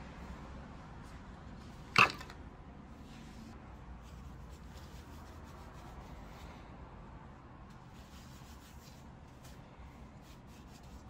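A single sharp knock about two seconds in, then faint rustling of a paper tissue being rubbed over long hair.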